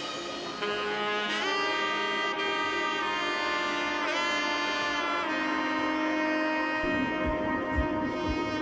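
Background music: held melody notes, two of them sliding in pitch, with a low steady beat coming in near the end.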